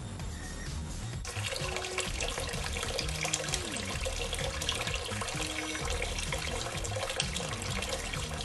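Kitchen tap running into a stainless steel sink, the stream splashing onto vegetables being rinsed in the basin; it starts about a second in and runs steadily, with quiet background music underneath.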